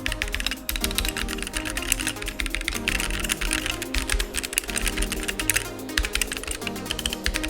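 Fast typing on a mechanical keyboard fitted with Gazzew Boba U4T tactile switches: a quick, continuous run of keystroke clacks, over electronic background music.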